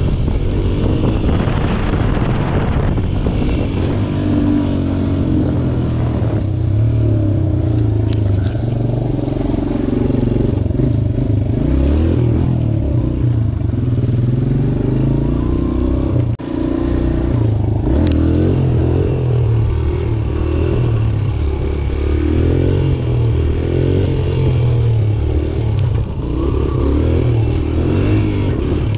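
Suzuki DR-Z125 pit bike's single-cylinder four-stroke engine being ridden, its revs rising and falling with the throttle. The sound drops briefly about halfway through, then picks up again.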